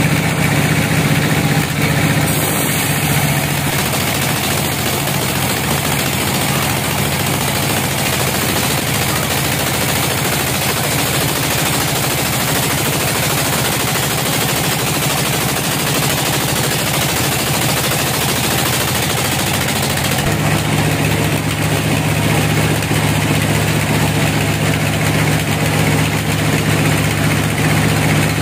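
Sawmill bandsaw machinery running with a steady engine drone. Its pitch shifts slightly about 2 seconds in and again about two-thirds of the way through.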